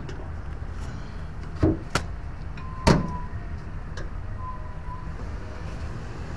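A few sharp plastic clicks and knocks as a screwdriver pries the locking tabs of a Toyota under-hood fuse box apart, the loudest about three seconds in, over a steady low rumble.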